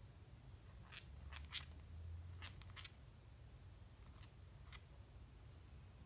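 Cockatiel grinding its beak: a handful of faint, short scraping clicks in small groups. It is the grinding that a relaxed, contented cockatiel does as it settles to rest.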